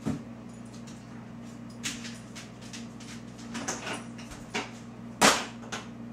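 A Weimaraner's movements across the kitchen: a knock as it drops down from the counter, scattered short clicks, then the flap of the pet door in the back door slapping shut as the dog goes out, the loudest knock, about five seconds in. A steady low hum runs underneath.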